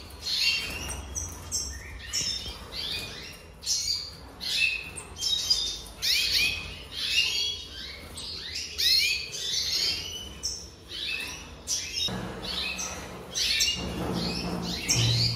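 Male red siskin singing: a fast, continuous twittering of quick chirping notes with short pauses. A low steady hum comes in about twelve seconds in.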